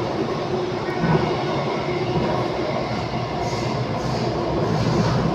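Inside a C951 metro train under way: a steady rumble of wheels and running gear, with a faint steady whine from the traction motors.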